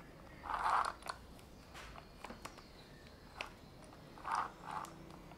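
Oiled saw chain being rubbed and worked by hand, its links giving scattered small clicks, with a few short, louder rubbing sounds about half a second in and again past four seconds.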